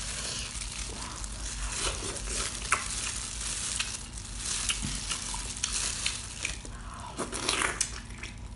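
Close-up wet squelching and small sticky clicks as cooked sea snail meat is worked out of its shell with plastic-gloved fingers, with denser wet eating sounds near the end as the meat is brought to the mouth.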